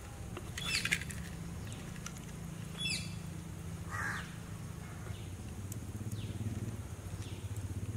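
Crows cawing a few times over a steady low hum.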